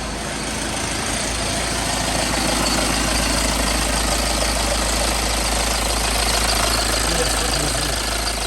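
BMW 520 engine idling steadily with a rough, rattling noise from the timing chain, which the mechanic takes for a worn chain that needs replacing.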